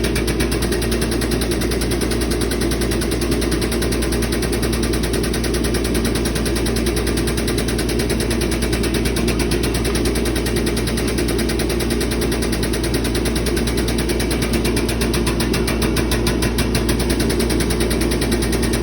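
Air-driven shop machinery of the pneumatic forging press running steadily with a fast, even rattling pulse.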